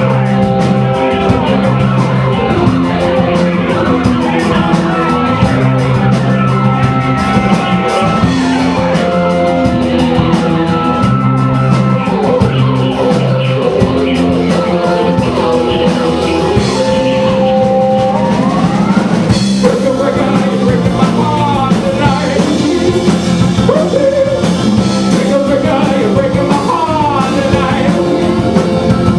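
Indie rock song playing at full volume: drum kit, held keyboard chords and a singing voice, with a rising pitch slide a little past halfway through.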